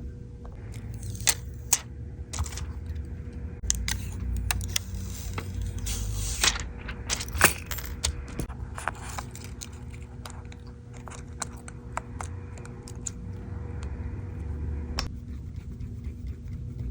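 Small metal tools and phone parts clicking and scraping while an iPhone's screen is worked on: light, irregular ticks and taps, with a few sharper clicks in the middle, over a low steady hum.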